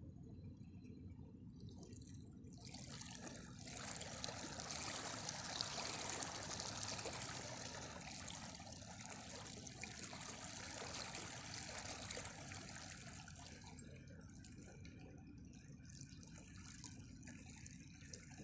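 Small ripples lapping and trickling over the pebbles at a river's edge: a fine splashing hiss that swells about two seconds in and dies away after about thirteen seconds, over a low steady rumble.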